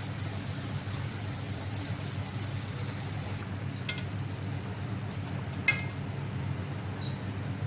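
Chicken masala sizzling and simmering in an aluminium pot on a gas stove, a steady hiss over a low hum. A metal spoon clinks sharply against the pot once, a little past the middle, with a faint tap just before it.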